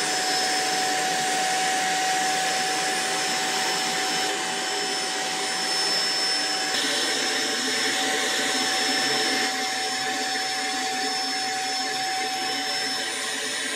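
Deerma handheld vacuum cleaner running steadily, a high motor whine over a rush of air, as its nozzle sucks dust from drilled holes in the wall.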